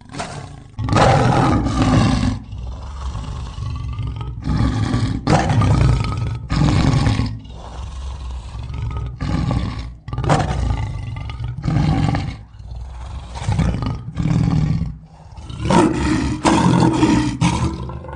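Lion roaring: a long series of loud roars and grunts, roughly one a second with short breaks between them.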